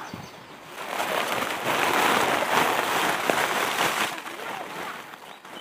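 A dry rustling and crackling noise made of many small clicks, swelling about a second in, holding for about three seconds and fading near the end.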